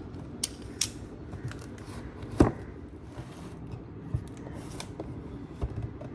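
Handling noises: scattered sharp clicks and short rustles, with one louder knock about two and a half seconds in, over a low steady hum.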